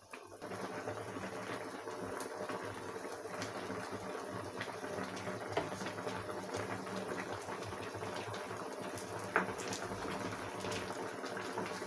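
Pot of meat stock boiling on a hob: a steady bubbling, with a single sharp knock about nine seconds in.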